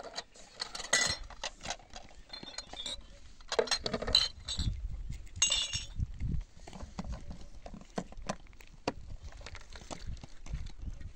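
Scattered clinks and knocks of glassware and plastic water containers being handled, busiest about a second in and again around four to five seconds in.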